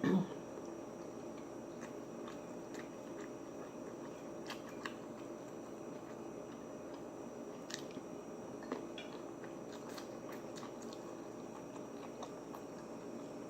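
A person chewing and biting food, with soft mouth sounds and scattered small clicks throughout. The food is tender jerk pork chops and sautéed vegetables. A brief, louder low sound comes right at the start.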